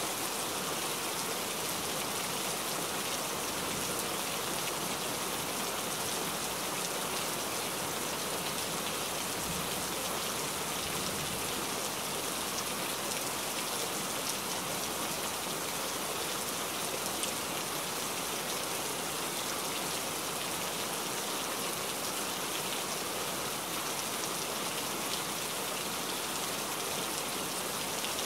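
Steady downpour falling on dense forest foliage: an even, unbroken hiss of raindrops on leaves.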